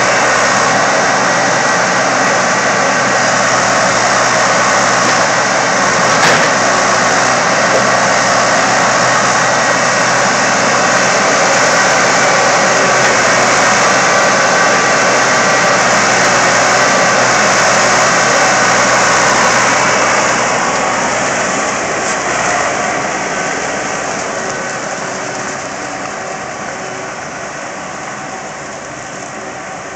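Skid steer engine running steadily, with one short sharp knock about six seconds in. From about twenty seconds in the engine grows gradually quieter.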